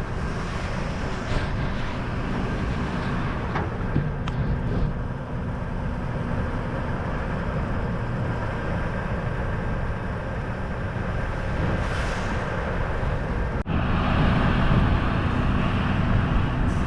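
Tractor running steadily, a continuous rumble with a faint steady whine; about three-quarters of the way through the sound cuts abruptly and comes back somewhat louder.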